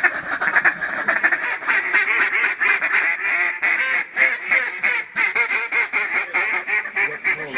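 Rapid, continuous duck quacking and chatter, many calls in quick succession with hardly a break.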